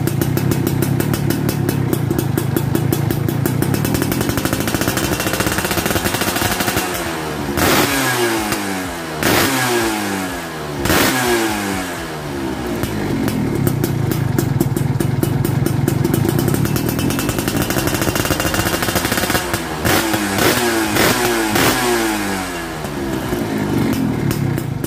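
Yamaha F1ZR's 110 cc two-stroke single running through an original AHM (Ampang Hoong Motor) exhaust: it idles, then the throttle is blipped several times in quick succession about a third of the way in and again near the end, the revs falling back to idle after each blip.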